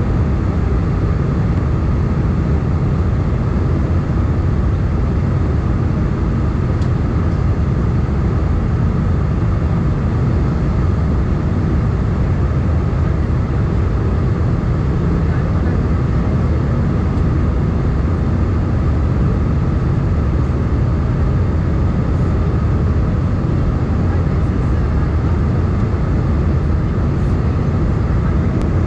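Steady cabin noise of an Airbus A320 in flight: an even, low roar of the jet engines and the air rushing past, heard from inside the cabin at a seat over the wing.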